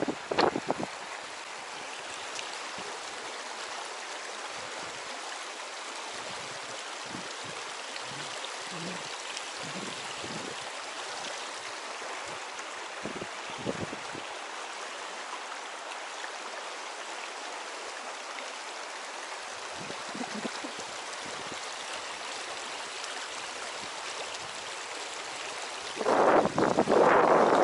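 Shallow river rushing steadily over a pebble riffle, with a few soft knocks. Near the end a much louder rough rushing burst comes in.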